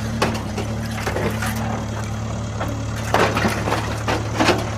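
Small electric motor humming steadily under irregular crackling and snapping, as a miniature press crushes sunflower seeds.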